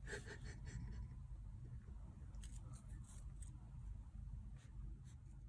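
Faint crinkling and small clicks of a plastic treat tube as a kitten grips it and bites at it, in bursts, over a steady low hum.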